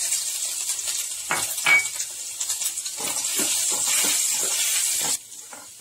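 Chopped food sizzling in butter in a stainless steel pot while a steel spoon stirs it, scraping and clinking against the pot; the loudest clink, with a short ring, comes nearly two seconds in. The sizzle cuts off abruptly about five seconds in.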